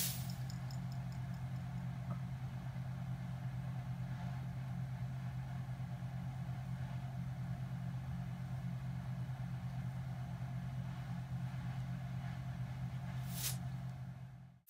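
A steady low mechanical hum, like a motor running, with a short click about 13 seconds in; the hum dies away just at the end.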